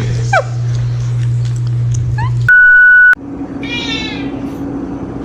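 A cat meowing a few short, high-pitched meows, cut into by a loud, steady electronic beep lasting just over half a second about halfway through. A low steady hum runs under the first half.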